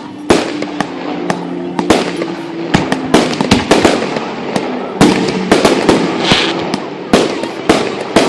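Fireworks display: many loud bangs going off in quick, irregular succession, several a second at times.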